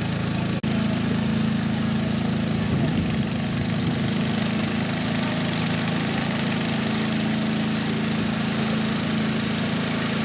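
A small river boat's motor running steadily, with a brief dropout just over half a second in.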